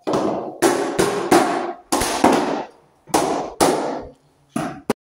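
A quick, irregular series of loud bangs, about ten in five seconds, each ringing briefly in a bare, empty room.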